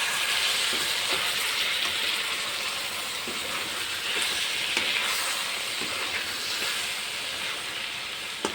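Okra chochchori sizzling in a hot kadai: a steady hiss with a few faint taps.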